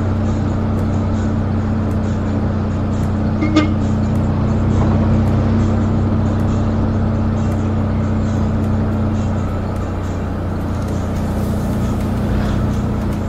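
Engine and road noise of a moving mikrolet minibus heard from inside the cabin, a steady drone, with one short beep about three and a half seconds in.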